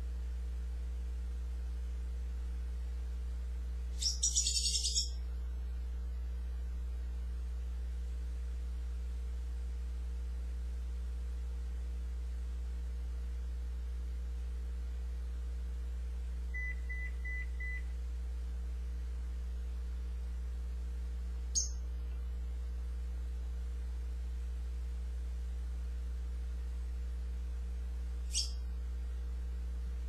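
African grey parrot calling: a loud, chattering high-pitched burst about four seconds in, a few short beep-like whistle notes around the middle, and two single sharp chirps later on. A steady low hum lies under it all.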